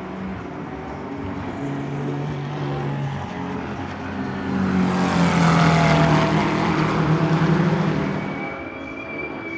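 GT3 race car engine passing at speed, getting louder about halfway through, loudest for a few seconds, then fading away near the end.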